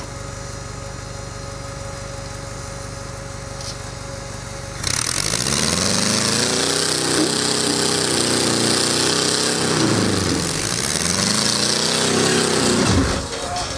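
Rock-crawler buggy engine running low and steady for about five seconds, then louder and revving up and down in two long surges under load as the buggy climbs a steep rock face.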